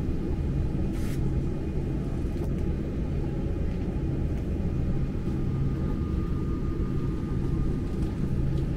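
Steady low rumble of cabin noise inside a Boeing 747-8, with a faint whine above it.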